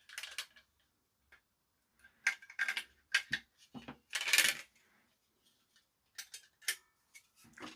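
Batteries being taken out of a TV remote, with a series of sharp clicks and clatters of hard plastic and metal and a longer rattle about halfway through.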